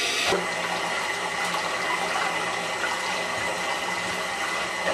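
Bathroom tap running, its stream splashing over a glass jar held in the sink basin. The jar is being shocked with alternating hot and cold water to crack it apart along its score lines.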